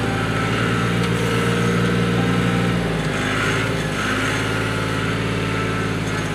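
Loader engine running steadily while working a log grapple, with a slight swell in level around the middle.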